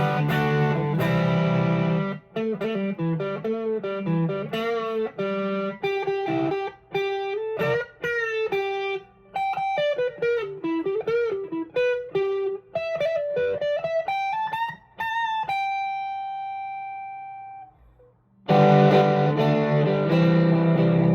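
Electric guitar played clean of speech: a few strummed chords, then a single-note lead phrase with string bends, ending on a long held note that rings and fades out. After a short gap, chords start again near the end.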